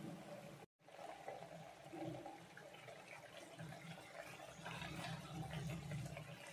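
Bitter gourd gravy boiling in a pan, bubbling and popping, with a spoon stirring through it in the last couple of seconds, where the sound gets louder.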